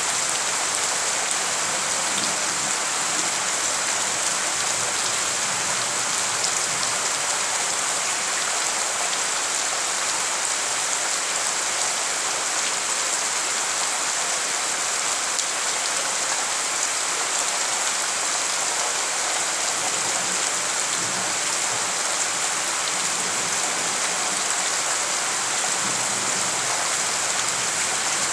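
Heavy rain falling steadily, the drops splashing into the standing water that covers a flooded yard.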